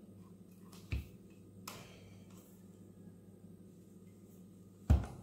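Sharp clicks and knocks from a folding tripod light stand as its legs and joints are spread and handled: one about a second in, a lighter click soon after, and the loudest knock near the end.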